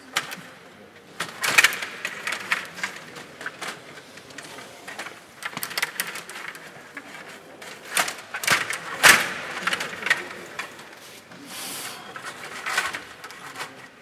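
Stiga table hockey game in play: the metal rods rattling and the plastic player figures and puck clacking in a series of irregular sharp clicks and knocks, the loudest about nine seconds in.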